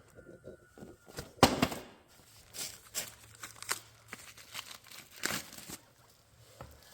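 Irregular crinkling and rustling with a series of sharp knocks and clacks, the loudest about one and a half seconds in: parts and packaging being handled during a brake pad job.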